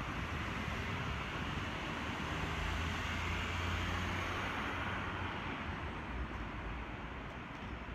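City road traffic: a steady hiss of tyres with a low engine rumble, easing off about five seconds in.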